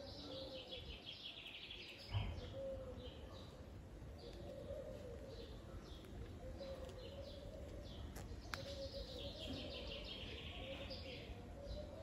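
Small songbirds chirping and trilling over and over, with a steady low background rumble and one brief thump about two seconds in.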